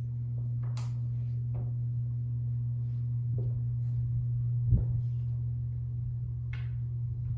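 A steady low hum fills the room, with a few faint knocks and rustles over it and one sharper knock a little past the middle.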